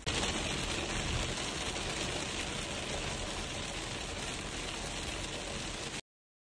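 Heavy rain falling on a car, heard from inside the cabin as a steady hiss over a low rumble. It cuts off abruptly near the end.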